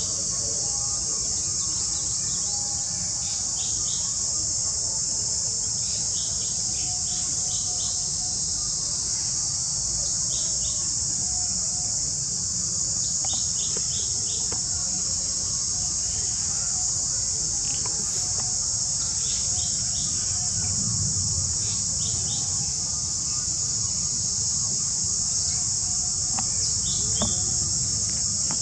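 A steady, high-pitched insect chorus, with brief bird chirps every few seconds.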